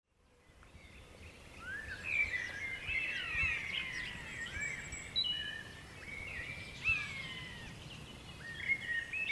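Several small birds singing and chirping together, fading in over the first couple of seconds.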